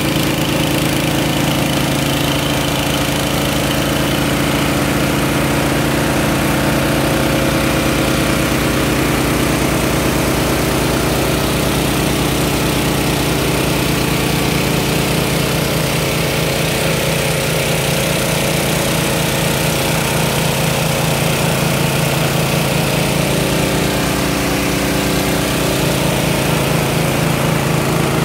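Small engine running steadily at a constant speed, powering the pumping of water out of a flooded mine pit.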